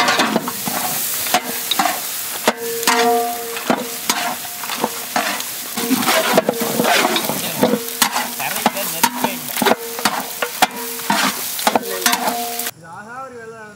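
Mutton bone meat frying in hot sesame oil in a large pot: steady sizzling, with repeated clatter and scraping of a ladle stirring the pieces. The sizzle drops away suddenly near the end.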